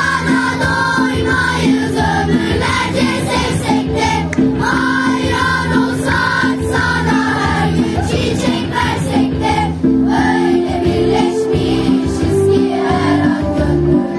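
Children's choir singing a Turkish song together over instrumental accompaniment with a steady bass.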